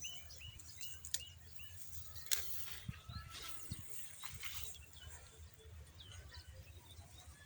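Small birds chirping: a quick run of short, high chirps, several a second, in the first second or so, then scattered chirps and a few clicks over a faint low rumble.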